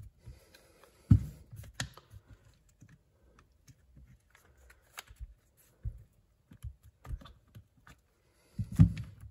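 Plastic housing parts of a cordless drill being handled and fitted together by hand: scattered clicks and light knocks, with a louder thump about a second in and another near the end.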